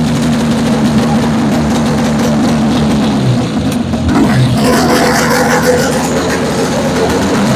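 A 1977 Arctic Cat Pantera snowmobile's two-stroke engine running steadily after a wiring repair, with a brief rise in revs about four seconds in.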